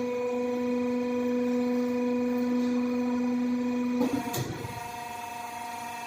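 CNC pipe bending machine running with a steady hum. About four seconds in the hum drops off with a short clatter, and a fainter hum carries on.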